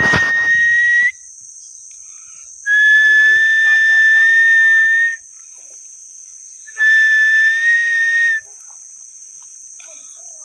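A person whistling long, steady notes on one pitch, each held for one to two and a half seconds with pauses between: the whistling done to lure snakehead fish out of the water.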